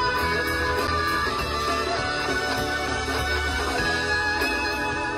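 A live rock band playing: electric guitars over bass and drums, with steady cymbal strokes.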